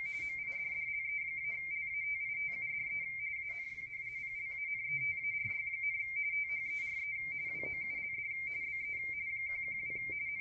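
Radioteletype (RTTY) signal on the 80-metre band, heard through a Yaesu FTdx10 transceiver: two close tones, a 170 Hz-shift mark and space, switching rapidly back and forth in an unbroken warbling chatter as a bulletin is sent. Faint band noise and occasional short crackles lie underneath.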